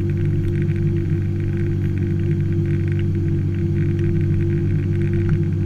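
Motor of an Alweld aluminium boat running at a steady cruising speed, a constant low drone, with water hissing and splashing along the hull.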